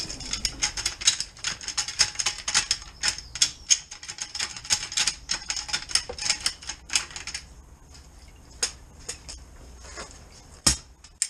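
Drain rod plunged up and down in a flooded, blocked manhole: a rapid, irregular clatter of knocks and splashes that thins out about seven and a half seconds in, followed by a few single knocks near the end.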